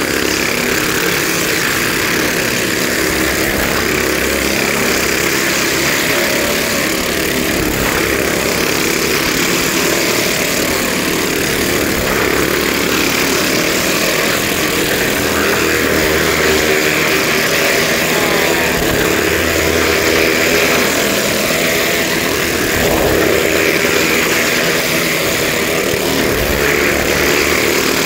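Two motorcycles circling the vertical wooden wall of a well-of-death drum, their engines running loud and continuous and swelling a little now and then as they lap.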